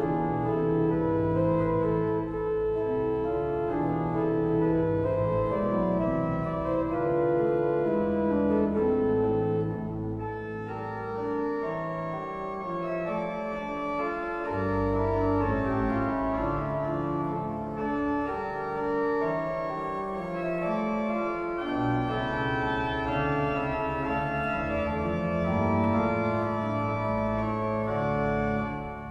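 Mascioni pipe organ (op. 1183) playing a piece of chords on the manuals over a pedal bass line, held notes changing from chord to chord. The sound thins briefly about ten seconds in.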